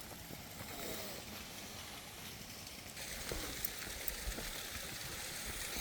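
Steady outdoor hiss of rushing air or water, with low wind rumble on the microphone and a few faint ticks. The hiss grows brighter about halfway through.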